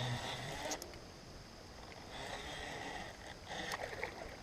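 Water splashing and swirling in short bursts as a hooked musky fights on the line in a creek.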